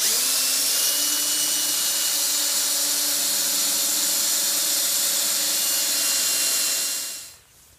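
Cordless drill running steadily at full speed as its bit bores a hole through a wooden 2x4, for about seven seconds, then winding down and stopping.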